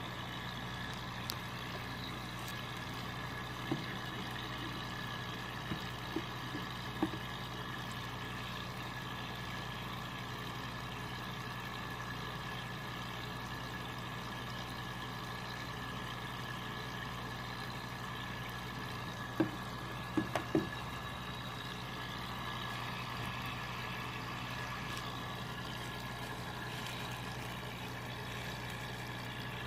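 A steady low machine hum, with a few faint clicks scattered through and a small cluster of them about two-thirds of the way in.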